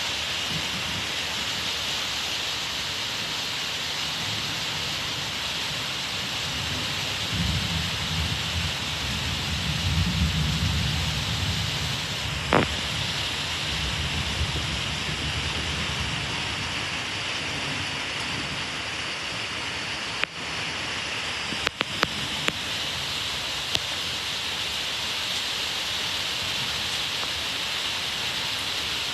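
Steady rain falling throughout, with a low rumble of thunder that rolls for several seconds about a quarter of the way in. A sharp click sounds near the middle, and a few more short clicks come about two-thirds of the way through.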